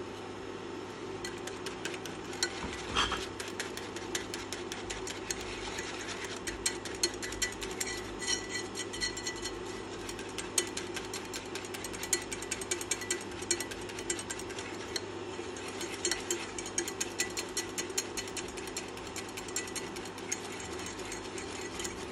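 Coil whisk beating a thin mixture in a saucepan, its wire clicking and rattling rapidly and unevenly against the pan, over a steady low hum.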